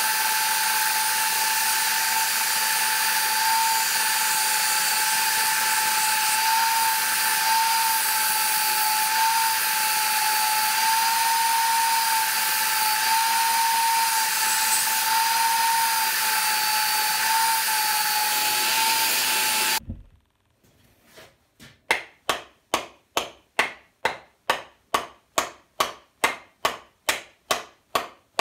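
Belt sander mounted upside down in a stand, running steadily with a whine that wavers slightly as a wooden hatchet handle is pressed against the belt. It stops abruptly about twenty seconds in; after a pause comes a run of about fifteen even knocks, a little over two a second, as the hatchet head on its handle is worked.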